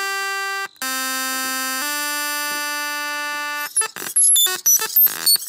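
Computer-synthesized tones from a Max/MSP patch: long, steady buzzy notes that step to a new pitch twice, then, from a little past halfway, a fast, erratic stream of short, loud bleeps jumping all over the pitch range, which is the installation's aggressive response to a person coming too close to its sensor.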